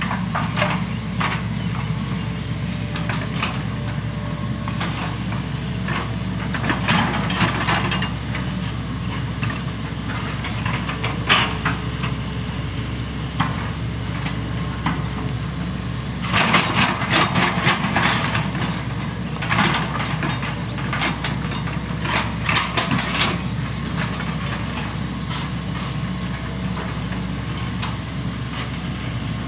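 Diesel engines of working hydraulic excavators running steadily, with a yellow long-reach excavator nearest. Scattered clanks and clatters from the working machines come through, in two busy runs a little past the middle.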